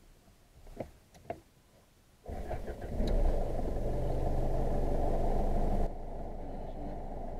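Isuzu D-Max V-Cross 3.0-litre four-cylinder turbo diesel being started: two faint clicks, then the starter turns it over and the engine catches about three seconds in at a raised idle, dropping to a lower, steady idle about six seconds in.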